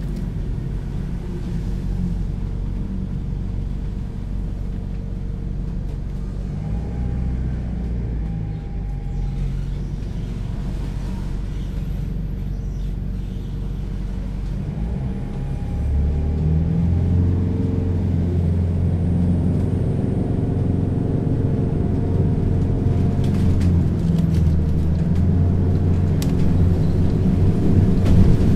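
Diesel auxiliary engine of a Hess BGT-N2C (Swisstrolley 3) trolleybus running, a steady low rumble. About halfway through it grows louder and deeper as the engine picks up speed and works harder.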